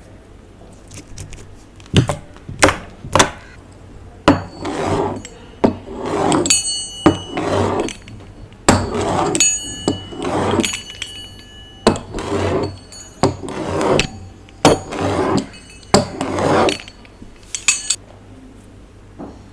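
Clear slime being worked in a container, with repeated squelching strokes about a second apart between sharp taps. Several times a utensil clinks against the container with a brief ring.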